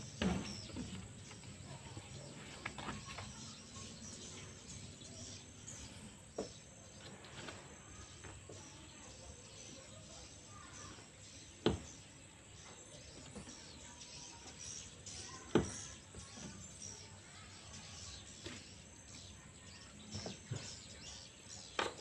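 Hands and a tool working against a plastic washing-machine tub while epoxy patches are pressed on: quiet handling with a few sharp knocks, two of them loud about halfway through, and a short cluster near the end. Faint bird chirps in the background.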